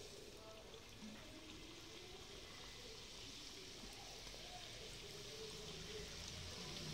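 Chicken spring rolls sizzling as they deep-fry in hot oil: a faint, steady hiss that grows a little louder toward the end as more rolls go in.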